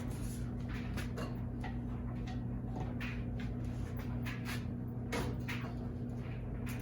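Irregular light clicks and knocks from a ceiling fan being taken apart, over a steady low hum.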